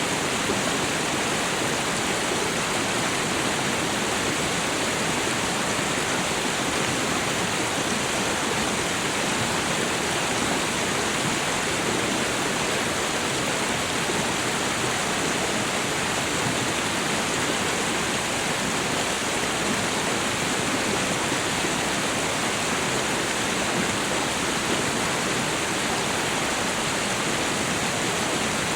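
Steady rush of running water and a small waterfall: meltwater from a winter thaw pouring and splashing without letup.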